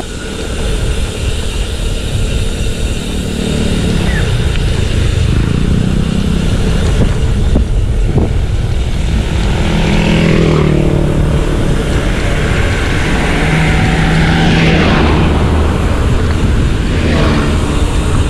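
Steady wind and road rumble from riding a bicycle along a road, with motor vehicles passing several times, most plainly in the second half.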